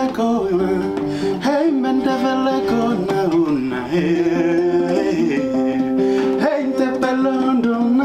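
A man singing a song while playing an acoustic guitar, his voice gliding between held notes over the guitar.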